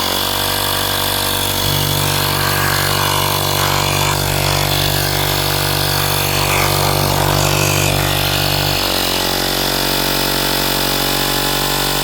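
Small 12 V portable air compressor running steadily, its electric motor and piston pump giving a constant mechanical drone, with the outlet held shut by a fingertip. The tone shifts about nine seconds in.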